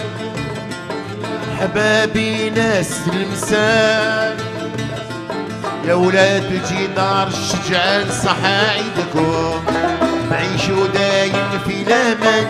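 Algerian chaabi music: plucked mandole and banjo with a violin, a wavering ornamented melody over a steady strummed accompaniment.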